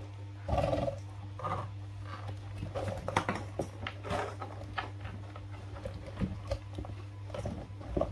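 Baby macaques giving short squealing calls as they scramble in a plastic toy dump truck, with scattered knocks and scuffs of the plastic truck. A steady low hum runs underneath.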